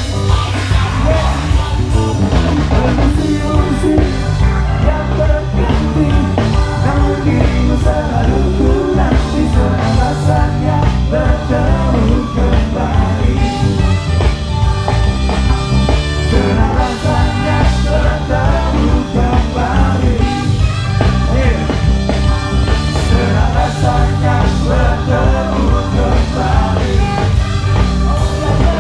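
Band playing an upbeat ska-rock song, with a heavy bass line stepping through the low notes under guitars and drums.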